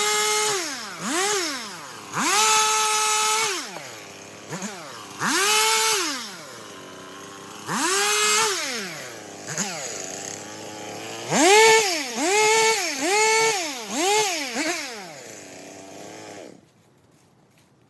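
Stihl chainsaw engine revving up to full speed and dropping back to idle again and again, with a run of quick blips near the end, then shut off.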